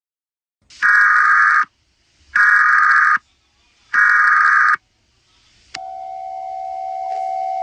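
Emergency Alert System SAME header: three identical one-second bursts of warbling digital data tones, then a steady attention tone starting about a second after the third burst and holding.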